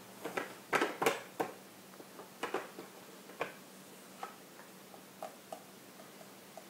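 A plastic plate knocking and scraping on a plastic high-chair tray as a toddler handles it. A quick cluster of sharp clacks comes in the first second and a half, then lighter scattered taps and clicks.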